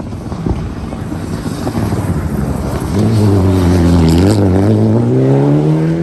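Rally car on loose gravel, its tyres crunching and hissing as it approaches, then its engine loud as it passes close. About four seconds in, gravel sprays as the car slides, and the engine note dips, then climbs steadily as the car accelerates away.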